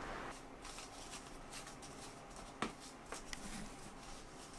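Faint rustling of a shirt being pulled on and gone over with a sticky lint roller, with two sharp crackles a little past halfway.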